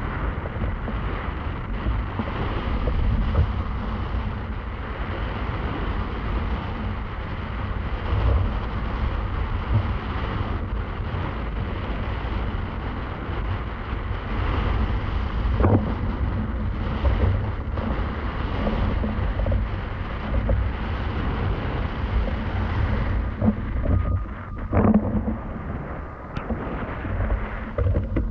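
Strong wind buffeting the microphone, mixed with water rushing, while windfoiling; the level surges and falls throughout. Near the end the hiss thins and a few short knocks come through.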